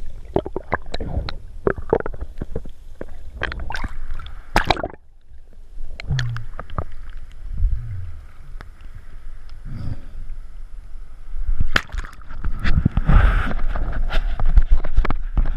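Water sloshing and gurgling around a GoPro in its waterproof housing as a snorkeler swims, the camera dipping under and breaking the surface. Irregular splashes and knocks, a short lull about five seconds in, and louder splashing near the end.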